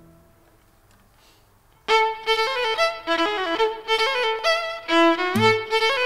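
A short near-silent pause as the last notes die away, then about two seconds in a solo violin comes in with a fast run of bowed notes, jumping up and down in pitch. Around five seconds in a few low accents from the accompaniment join it.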